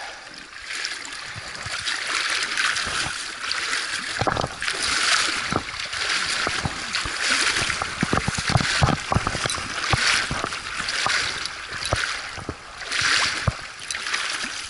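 Feet splashing and sloshing through shallow river water over cobbles in a run of uneven bursts, as a hooked pink salmon is chased into the shallows and grabbed by hand, with a steady rush of moving water underneath.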